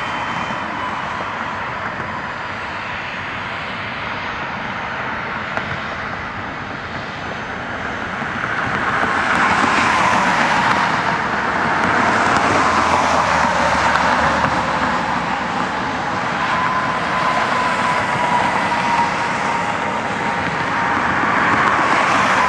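Twin rear-engined business jet taxiing past at low power: a steady turbine whine over engine rush, getting louder from about eight seconds in as the jet comes nearest and staying up as it turns away.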